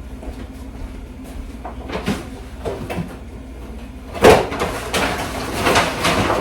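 Kitchen handling noise: a few light clicks, then a sharp knock about four seconds in, followed by rustling and clattering as things are packed away.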